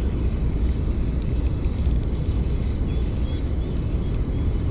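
Wind rumbling steadily on the microphone while a small spinning reel is cranked, giving a scatter of faint, sharp high ticks.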